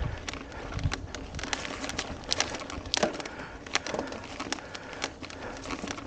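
Mountain bike rolling over a rough dirt and gravel trail: a low rumble from the tyres with many irregular clicks and rattles as the bike jolts over bumps, a few sharper knocks in the middle.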